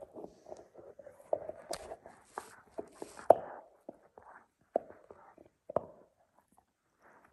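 Alaskan Malamute puppy gnawing a meat-filled chew bone: irregular crunching and clicking of teeth on the bone, loudest about three seconds in, thinning out to a few faint ticks near the end.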